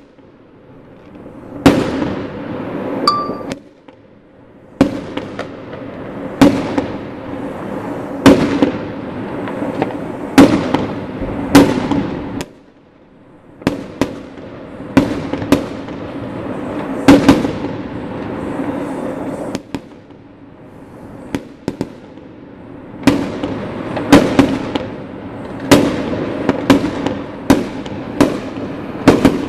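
Aerial fireworks bursting: a long series of sharp bangs, one every second or two, each trailing off in an echo, with two short lulls.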